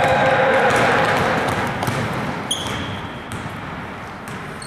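Basketball game sounds in a gym: a crowd of voices, loudest at the start and slowly fading, with a ball bouncing on the court. There is a short high squeak about two and a half seconds in and another near the end.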